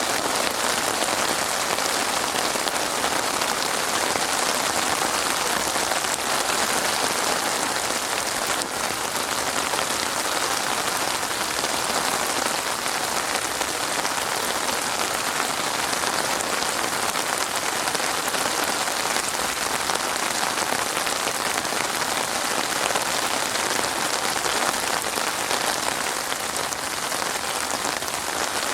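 Steady rain falling on a surface, an even hiss of many drops with no pauses or thunder.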